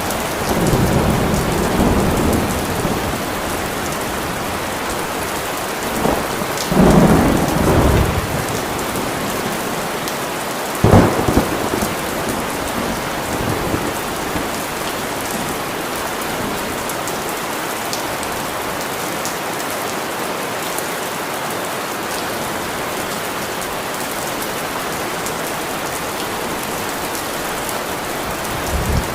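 Steady rain falling, with thunder rumbling near the start and again about seven seconds in, and a sharp thunderclap about eleven seconds in.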